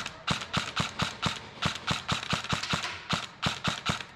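Airsoft rifle firing a rapid string of semi-automatic shots, about four a second, each a short sharp crack.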